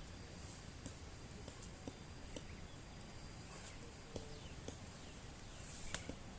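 Forest ambience: a steady high-pitched insect drone, with scattered light clicks and taps and a few short chirps.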